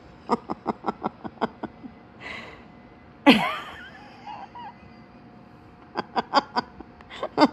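A woman laughing in quick breathy pulses, about six a second, in two bouts near the start and near the end, with a short high squeal that slides down in pitch about three seconds in.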